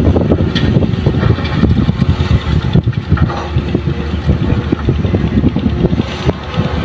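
Heavy diesel engine of earthmoving machinery running steadily and loud, with a few short knocks over it.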